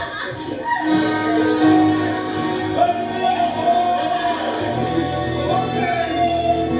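Live stage-musical accompaniment playing an up-tempo show tune, with held notes and some voices singing along.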